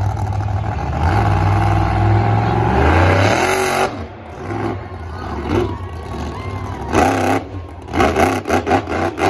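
Krazy Train monster truck's engine revving hard, its pitch climbing, then backing off sharply about four seconds in. Near the end it revs again in a string of short, quick bursts while the truck holds a wheelie.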